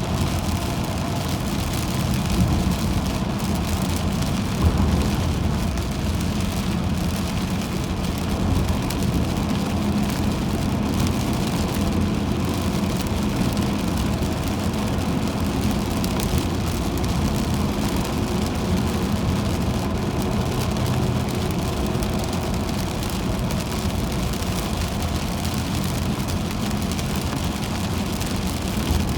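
A car driving on a wet highway in heavy rain: steady tyre and road noise with rain hitting the car.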